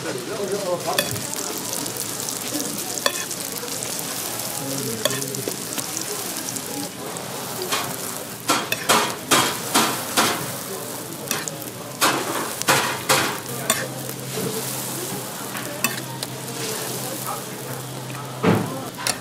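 Hotteok frying in oil on a flat griddle, sizzling steadily, while a metal hotteok press knocks against the griddle in quick runs of strokes as the dough balls are pressed flat, with one loud knock near the end.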